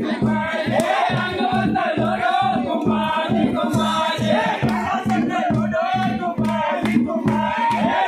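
Loud music with a steady, driving beat and singing over it.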